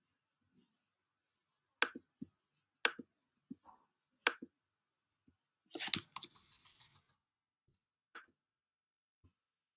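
Sharp clicks of a computer mouse, each a quick press and release, three of them about a second apart, then a quick run of keyboard keystrokes about six seconds in as a colour code is deleted, and one faint click near the end.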